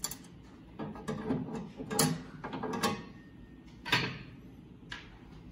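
Cover plate of a thermal analyzer's front operation window being worked loose and pulled off by hand: a run of knocks and clatters, the loudest about two seconds and about four seconds in.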